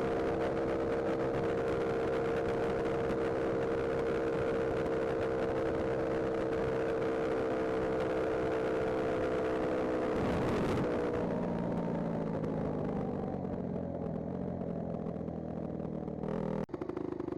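Honda CRF motorcycle engine running at steady revs, then dropping to lower revs about two-thirds of the way in. The sound changes suddenly near the end. It carries an abnormal engine noise that the owner takes as needing a full overhaul.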